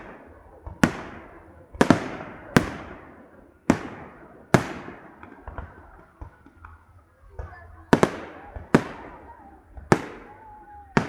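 Fireworks salute: aerial shells bursting one after another, about nine sharp booms, each followed by a long echoing rumble, with smaller crackles between and a lull in the middle.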